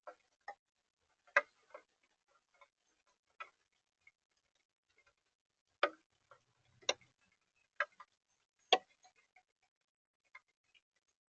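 Raindrops dripping in irregular single taps, a few louder than the rest, with short gaps between them.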